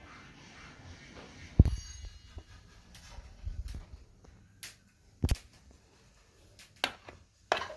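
Kitchen handling noise: about six scattered knocks and clicks over a faint background, the loudest about one and a half seconds in.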